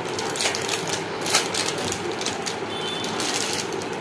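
Plastic ice cream wrapper crinkling and crackling in the hands as it is torn and peeled open, in a string of irregular sharp crackles.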